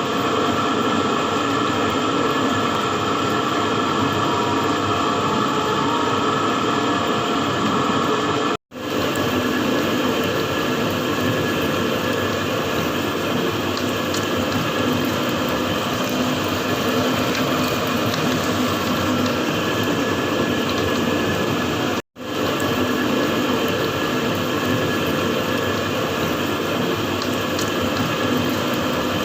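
Barrel galvanizing machine running: a steady mechanical drone with gear and ratchet-like clatter from the rotating plating barrels. The sound cuts out abruptly twice.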